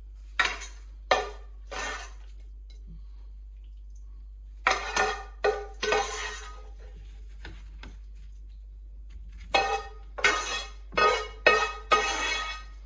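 Metal serving spoon clanking and scraping against a stainless steel pan as pasta in green sauce is served out onto plates. The clatter comes in three bursts with short pauses between.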